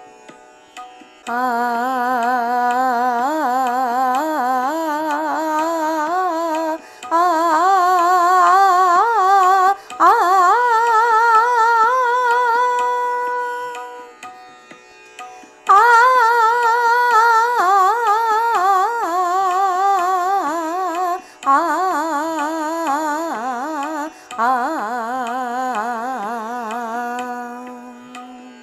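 A single wordless melodic line with wavering held notes plays the Raag Bhairav alankaar pattern 213222. It climbs in short phrases up the scale, pauses briefly about halfway, then comes back down phrase by phrase to the starting note.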